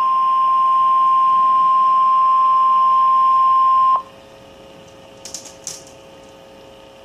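Emergency Alert System alert tone for a severe thunderstorm warning: a single steady high-pitched tone that cuts off suddenly after about four seconds. A faint steady hum and hiss follow, with a few soft clicks.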